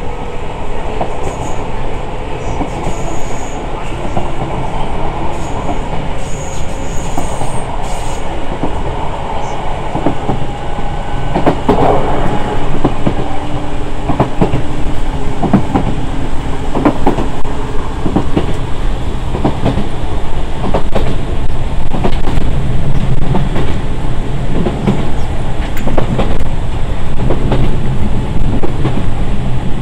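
Enshu Railway 1000 series electric train running, heard from inside the car: a steady rumble with the wheels clicking over rail joints, growing louder through the second half.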